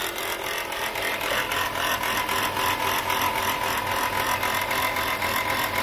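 Chrysler Pacifica engine running with a steady whine and a fast, even rattle from the alternator, whose bearing is shot and whose pulley is wobbling.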